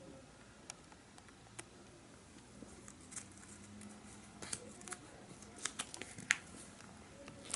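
Faint handling sounds from clear plastic trading-card binder sleeves: scattered light clicks and crinkles at irregular times, more frequent in the second half.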